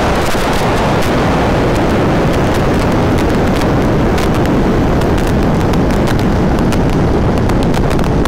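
Heavy wind rush on the microphone of a Yamaha R1 sport bike slowing from about 300 km/h in sixth gear, with a scatter of sharp crackles throughout.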